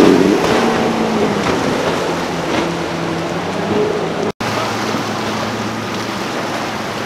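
Small skiff's outboard motor running at speed past, with water rushing under the hull; loudest at the start, then fading. About four seconds in the sound cuts out for an instant, then another motorboat's engine runs with a steady low hum over the wash of its wake.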